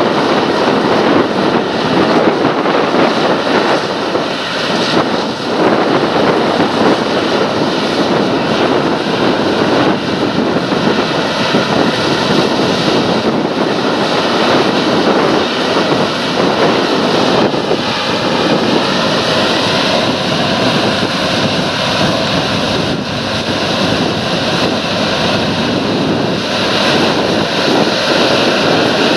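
John Deere combine harvester running close by while cutting wheat: a loud, steady machine noise of engine and threshing, with a faint steady whine that grows clearer about two-thirds of the way through.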